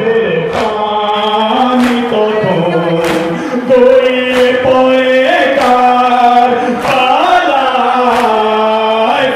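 A noha, a Shia lament, sung in long held, gliding notes by a male reciter with mourners joining in. It is cut through by sharp slaps at a slow beat from mourners beating their chests (matam).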